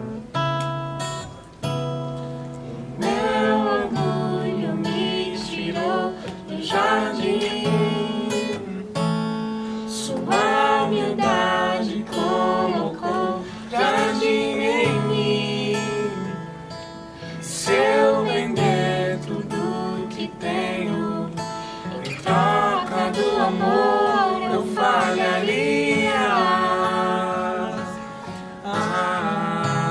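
Strummed acoustic guitar accompanying a voice singing a Portuguese worship song, the voice coming in about three seconds in.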